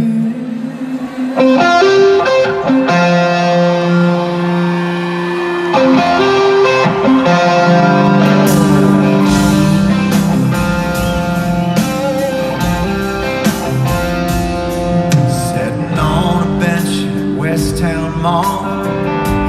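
Live country-rock band playing an instrumental passage led by electric guitar, heard loud from the arena stands. Sustained guitar notes come first, and bass and drums join about six seconds in.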